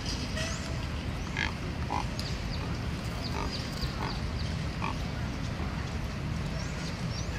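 Neotropic cormorants giving about five short grunting calls, spaced roughly half a second to a second apart, over a steady low rumble. Faint, brief high chirps of small birds are heard throughout.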